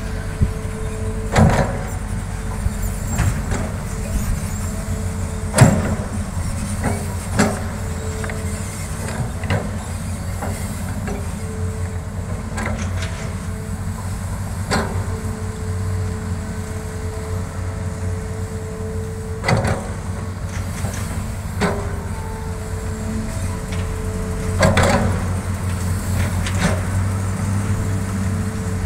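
Hitachi hydraulic excavator running steadily as it digs dirt, with a thin whine that comes and goes and a sharp clank from the bucket every few seconds.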